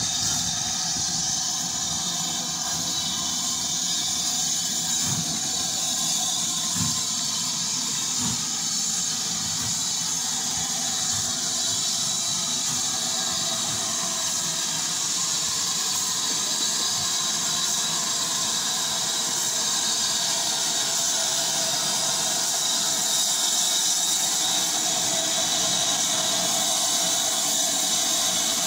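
BR Standard Class 7 'Britannia' steam locomotive hissing steadily as it pulls slowly off the turntable, steam escaping at its front end. The hiss grows a little louder near the end as the engine comes closer.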